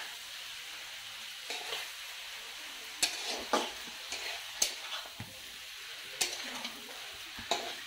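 Duck meat curry sizzling in a wok while a metal spatula stirs it. From about three seconds in, the spatula gives several sharp knocks and scrapes against the pan.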